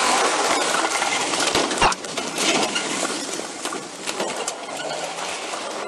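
Body-worn camera jostling and rubbing against clothing and gear as a deputy moves quickly on foot with a spike strip bag, with footsteps and many light metallic clinks. A sharp knock comes about two seconds in.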